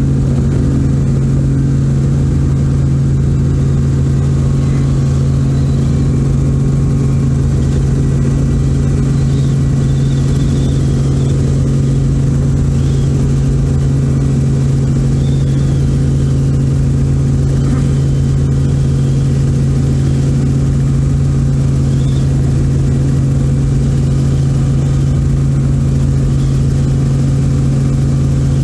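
A light helicopter's engine and rotors heard from inside the cabin: a loud, steady low drone that stays unchanged through lift-off and the climb away.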